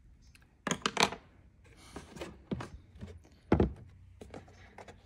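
A handful of short clicks and knocks of hard plastic as a motorcycle lower fairing is handled and a small part is pulled out of it. The loudest knock comes about three and a half seconds in.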